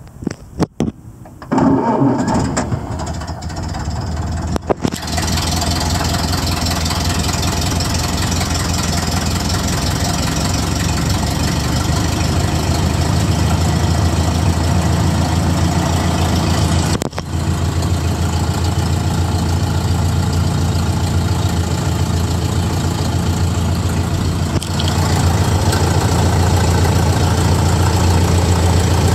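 1929 Ford Model A's four-cylinder flathead engine starting from cold: it catches about a second and a half in, runs unevenly for a few seconds, then settles into a steady idle. The idle dips briefly about halfway through and comes up a little louder near the end.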